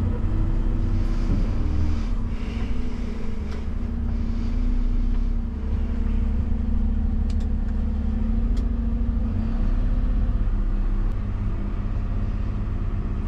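Dennis Elite+ refuse truck heard from inside its cab as it moves slowly along a street: a steady low engine rumble with a faint hum. A couple of light ticks come about halfway through.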